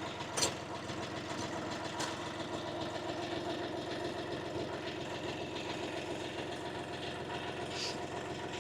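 A 25 hp UHI 254 compact tractor's engine idling steadily, with a couple of short knocks in the first two seconds.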